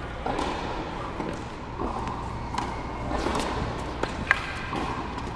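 Tennis ball knocks on a hard court: a few sharp hits or bounces, the loudest with a short ping about four seconds in, over a low muffled murmur.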